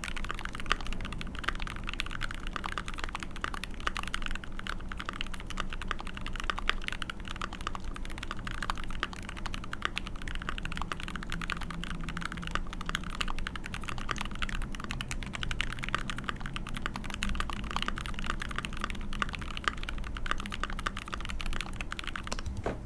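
Continuous fast typing on an Alpine65 custom mechanical keyboard with a brass plate, Dinokeys Mint linear switches lubed with Krytox 205g0 and GMK Olivia++ keycaps: a dense, even stream of key clacks.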